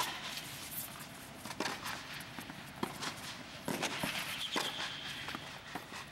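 Tennis rally: sharp racket-on-ball hits and ball bounces a second or so apart, with footsteps on the court and a short high squeak about three-quarters of the way through.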